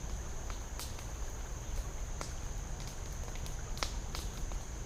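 Steady high-pitched insect drone, with scattered light clicks and rustles from movement on the bank.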